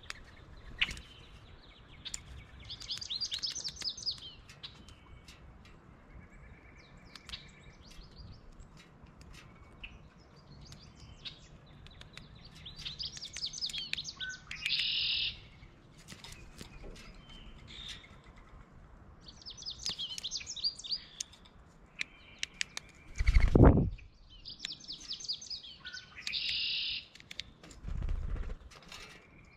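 Wild birds singing and chirping outdoors, high-pitched song phrases recurring about every six seconds, over scattered sharp clicks. A loud low thump comes about 23 seconds in, and a weaker one near the end.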